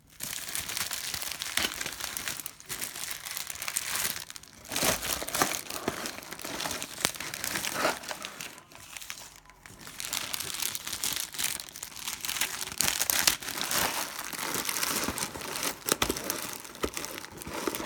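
Empty cellophane trading-card pack wrappers being crumpled and crinkled by hand, a continuous crackling full of small sharp crackles.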